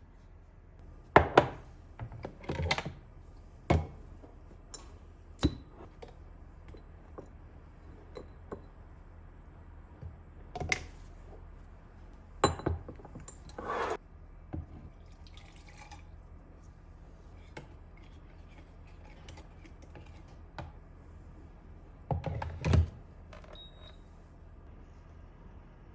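Kitchen dishes and utensils being handled: scattered knocks and clinks of things set down and moved, sometimes two or three close together, over a low steady hum.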